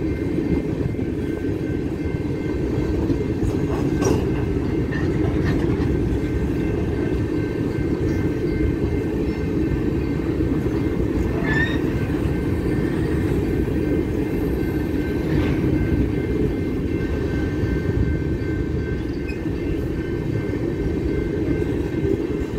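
BNSF coal train's open-top coal cars rolling steadily past over the rails, a continuous low rumble of wheels and cars.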